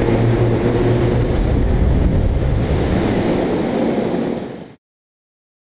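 Stormy surf-and-wind sound effect with a low steady hum beneath it. It fades out and stops about four and a half seconds in.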